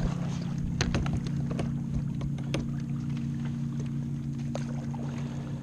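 Water lapping against a kayak hull, with a few sharp knocks and clicks in the first three seconds as the paddle is put down and a fishing rod taken up, over a steady low hum.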